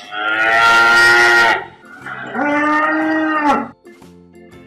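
Cow mooing twice, two long calls of about a second and a half each, the second falling in pitch as it ends.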